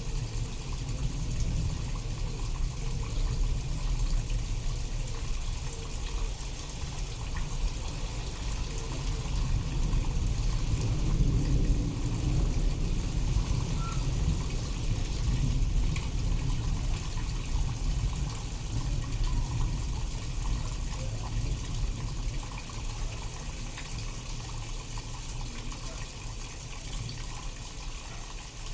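Steady rain falling, with a deep, low rumble of thunder rolling underneath that swells about ten seconds in and slowly dies away.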